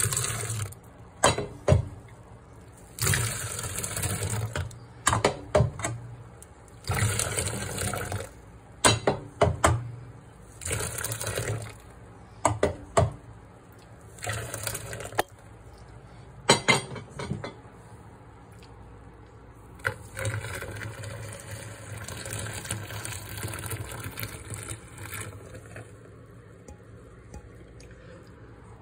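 Warm milk mixed with yogurt starter being poured from a cup into a plastic tub several times, splashing and frothing into bubbles, with short knocks of the containers between pours. The longest pour comes about two-thirds of the way through.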